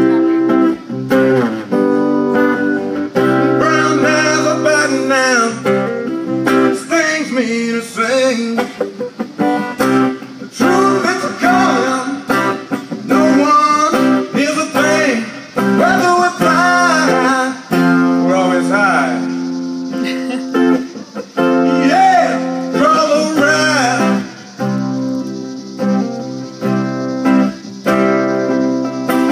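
Acoustic guitar strummed and picked, with a man singing over it for most of the stretch, as a live solo performance.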